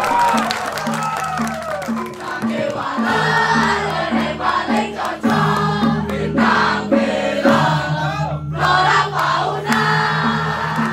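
Balinese gamelan music with a steady, even beat, with several women's voices singing over it and an audience crowd heard beneath.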